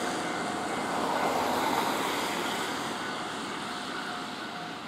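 JR Hokkaido 733 series electric train, two sets coupled, running slowly into a station platform. The running noise slowly fades as the train slows to a stop.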